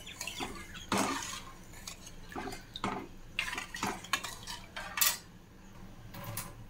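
Metal spoon stirring millet in water in a stainless-steel kadhai, scraping and clinking against the pan in irregular strokes that stop about five seconds in.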